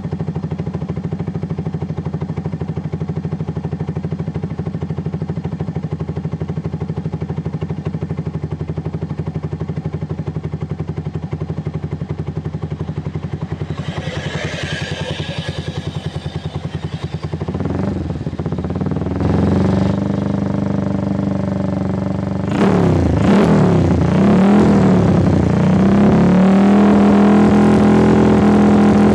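Suzuki Shogun R110's single-cylinder four-stroke engine, breathing through an aftermarket Andy Speed exhaust, idles steadily. From about two-thirds of the way in, the throttle is blipped several times, the pitch rising and falling with each rev. The exhaust note is deep and bassy.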